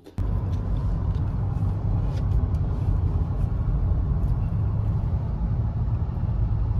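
Steady low rumble of a car on the move, heard from inside the cabin, starting suddenly just after the start.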